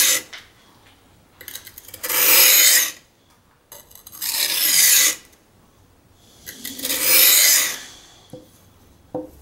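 Carbon steel knife blade ground across the coarse 220-grit side of a Norton combination whetstone: the end of one stroke at the start, then three long grinding strokes about two and a half seconds apart, with a couple of light clicks near the end. This is the edge being reprofiled to a new angle.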